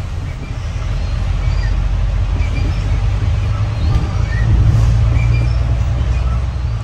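Low steady rumble of road traffic, swelling to its loudest about four to five seconds in, with a few faint high chirps over it.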